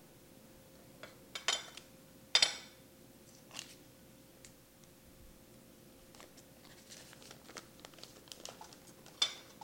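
Butter wrapper paper crinkling and a spatula scraping and tapping at a stand mixer's metal bowl as sticks of butter are put in: a scatter of short crackles and clicks, the sharpest about two and a half seconds in and another near the end.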